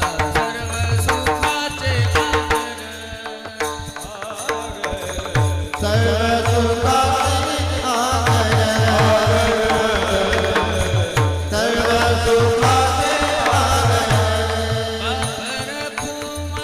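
Devotional kirtan singing: a voice singing a wavering, ornamented melody over a sustained drone and steady hand-drum strokes, the voice fuller from about six seconds in.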